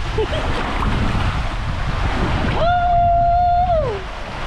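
Outdoor water-park din with wind buffeting the microphone. Partway through, a single pitched tone is held steady for over a second, then slides down in pitch as it ends.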